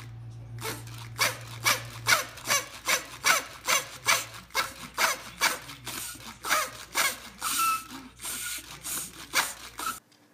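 Paper party blower blown in short toots, about two a second, as its paper tube unrolls and curls back; the toots cut off near the end.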